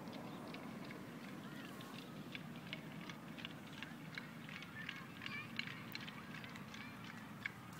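Outdoor ambience: a steady low rumble with many short, high chirps and clicks scattered throughout.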